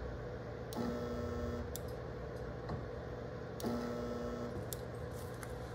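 Tite-Spot Mini-SWAT resistance spot welder making two spot welds of stainless steel screen cloth onto stainless steel plate, about three seconds apart. Each weld is a click followed by just under a second of steady electrical hum while the welding current flows.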